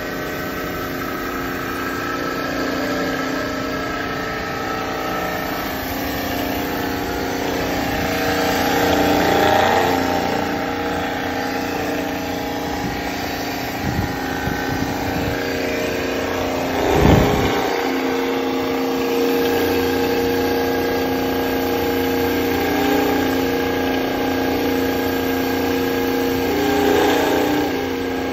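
Haas high-pressure coolant pump running: its electric motor and pump give a steady whine of several held tones that swells a little now and then. A few clicks and one sharp knock come about two-thirds of the way through.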